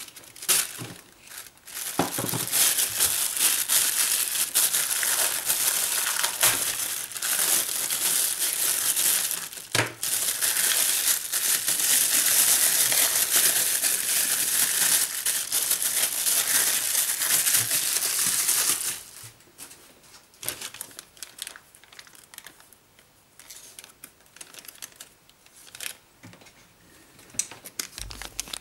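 Thin plastic packaging crinkling loudly and continuously as a small parcel wrapped in a black plastic bag is unwrapped by hand. It starts about two seconds in and stops suddenly a little over halfway through. After that come only quiet rustles and light clicks as a small zip-lock bag is handled.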